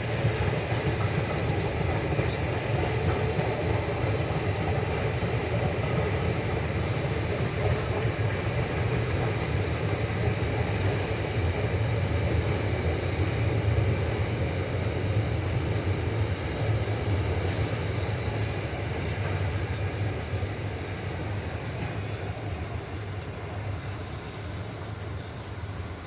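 A train passing, its wheels running on the rails in a steady, continuous rumble that fades over the last few seconds as it goes by.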